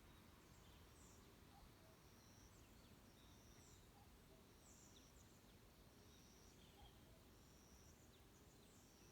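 Faint forest songbirds calling: short, high, thin notes repeating about once a second, with a few lower notes, over a steady low hiss.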